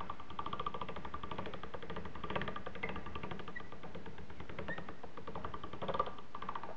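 Hand-cranked chrome pasta machine turning as folded fresh pasta dough is fed through its rollers on the widest setting; the crank and gears give a rapid, even clicking that stops near the end.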